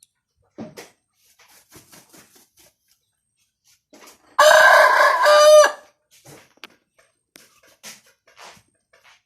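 A six-month-old gamefowl stag crowing once, a single held call of a bit over a second that drops in pitch at the very end, with faint scattered clicks and rustles before and after.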